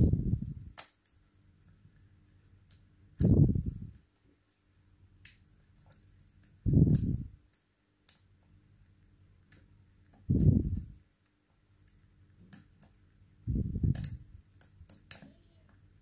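Light metallic clicks and ticks of a lock pick working the pins of an ASSA Ruko Combi Plus high-security cylinder. Under them, low puffs of air noise recur about every three and a half seconds.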